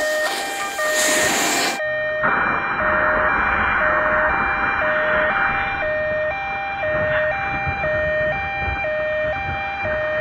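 Hi-lo two-tone siren sound in an electronic dance track, stepping steadily back and forth between a high and a low note about once a second over a low beat.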